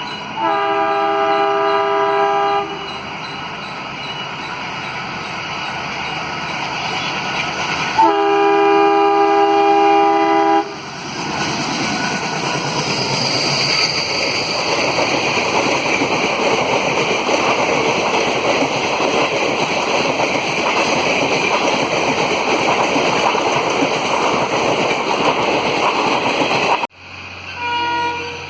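WDM-3A diesel locomotive's horn sounding two long chord blasts, a few seconds apart, as the express approaches at over 100 km/h. Then the loud rush and wheel noise of the train passing at speed, which cuts off abruptly near the end.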